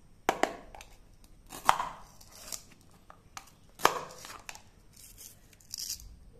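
Plastic toy knife knocking and scraping against a plastic cutting board as it cuts a hook-and-loop toy lemon, with three sharp knocks. Near the end, the hook-and-loop fastener rips briefly as the two lemon halves are pulled apart.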